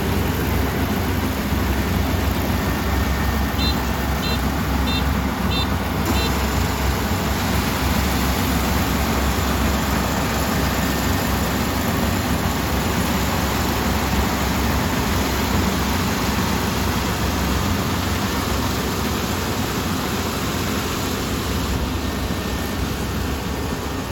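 Kubota ER470 combine harvester running steadily at work, its engine and machinery making a continuous dense noise. About four seconds in, a short run of about five quick high beeps sounds.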